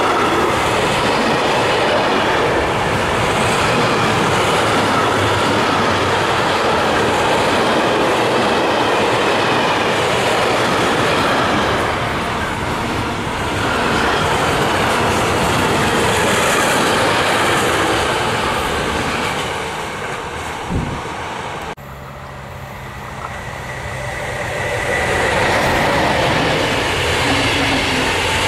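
Container freight train's wagons rolling past at close range: a loud, steady rolling and rail noise that eases off with a short knock near the end of its run. After a cut about three-quarters in, a City Night Line passenger train approaches, its rolling noise rising over a few seconds until its coaches are going past.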